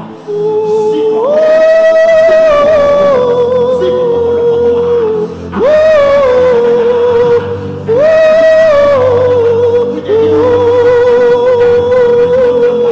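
Worship song: a solo voice sings long held notes with vibrato, sliding up into each of about four phrases, over a steady low keyboard-like backing.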